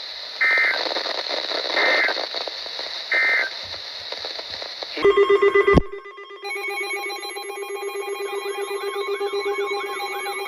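EAS end-of-message data tones: three short digital bursts over radio hiss, about a second and a half apart, closing the marine warning. About five seconds in the hiss cuts out after a loud pulsing tone, and a steady, pulsing, buzzy electronic tone with warbling overtones starts and runs on.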